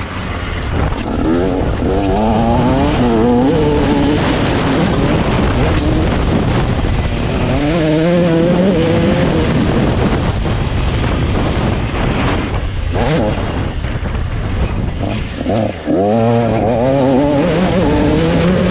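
KTM 150 SX two-stroke motocross bike engine revving hard, its pitch climbing and falling again and again as the throttle opens and closes, over a steady rush of noise.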